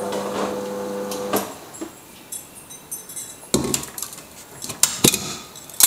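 A steady hum that cuts off about a second and a half in, followed by a few scattered knocks and clinks of kitchen utensils and cookware, the loudest near the end.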